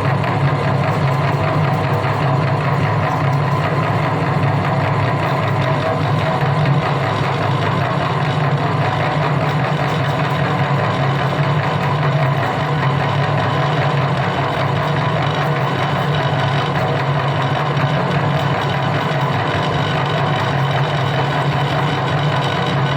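Electric meat grinder motor running with a steady, unbroken hum.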